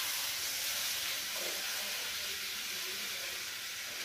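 Egg- and cornflour-coated chicken pieces sizzling steadily in hot oil in a kadhai.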